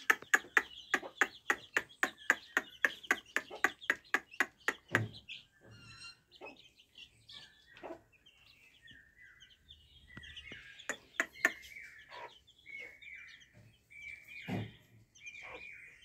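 Young parrot-beak Aseel chicks chirping in short calls, more often over the last few seconds, with a couple of dull thuds. The first five seconds are a fast run of sharp clicks, about four or five a second.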